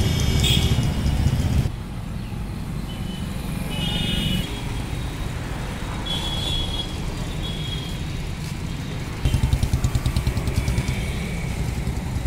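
Street traffic noise from cars, motorcycles and auto-rickshaws, a steady low rumble with a few short high tones. A louder, pulsing rumble comes in about nine seconds in.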